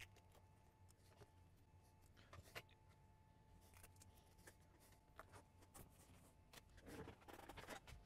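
Faint scattered clicks and light taps of tablet parts being handled and set down on a workbench. The clicks come more often near the end.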